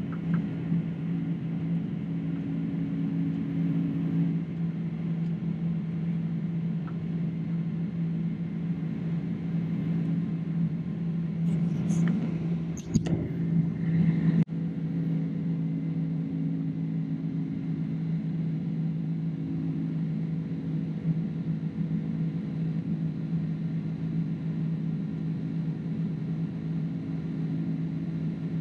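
Cabin noise of a Boeing 767-300ER climbing after takeoff: the steady drone of its turbofan engines and rushing air, with a low steady hum. A short cluster of clicks and a knock come a little under halfway through.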